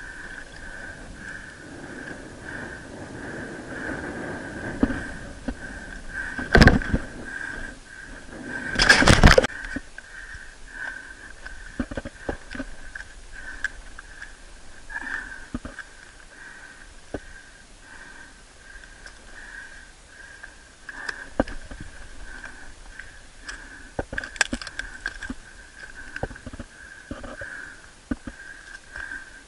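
Scuffs, knocks and scrapes of a climber's hands and feet on limestone rock and brush, recorded by a body-worn action camera, with two loud bumps about six and nine seconds in. A steady thin whine runs under it.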